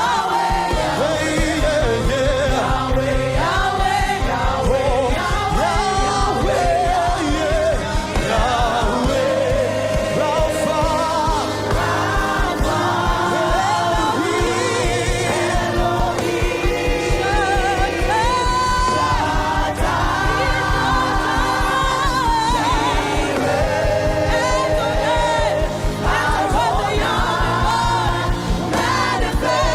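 Worship music: sung voices with wavering melody over a band with sustained bass and a steady beat.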